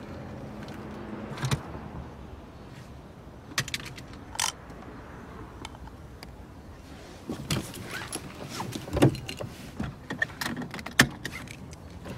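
Clicks and rustling of handling inside a car over a faint steady hum. About seven seconds in, a seatbelt is pulled across with a run of rustling and clicks, ending in a sharp click as the buckle latches.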